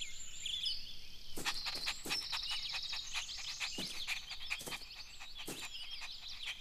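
Birds chirping and twittering in a cartoon garden ambience, with irregular short clicks or taps from about a second and a half in.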